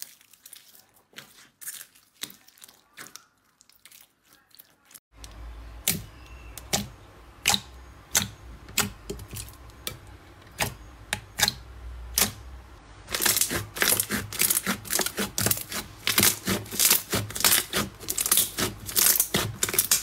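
Hands squishing slime: first a clear pink slime full of foam beads, with faint crackling, then a glossy orange clear slime pressed on a plate, giving sharp pops and clicks, sparse at first and coming fast and loud over the last seven seconds.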